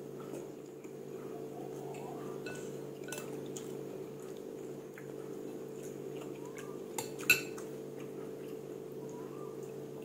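Eating noodle soup: wooden chopsticks and a metal spoon stirring and tapping in a white ceramic bowl, with small scattered clinks and one sharp clink about seven seconds in. A steady low hum runs underneath.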